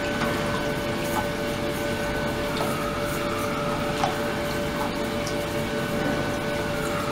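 Ultrasonic tank (72 kHz, 300 W) running with a submerged plastic container: a steady hiss of agitated water with a constant hum tone and a fainter whistle that sags in pitch and recovers, and a couple of light ticks.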